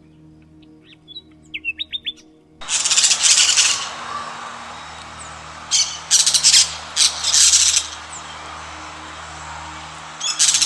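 Birds chirping: a few short chirps, then, after an abrupt change to a noisier background about two and a half seconds in, several loud, harsh bursts of calls.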